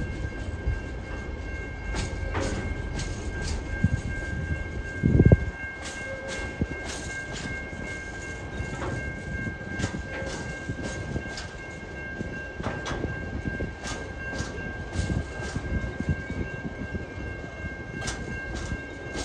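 Freight train's loaded container flat wagons rolling past, with a steady rumble and the wheels clicking irregularly over the rail joints. A loud low thump about five seconds in, and a steady high-pitched tone held throughout.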